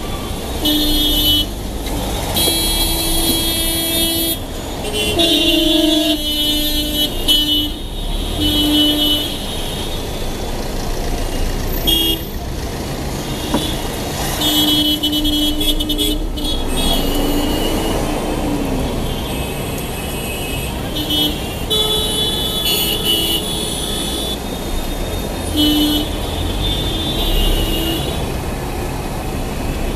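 Dense city traffic with vehicle horns honking again and again: many separate blasts, some short toots and some held for a second or two, over a steady rumble of engines and tyres.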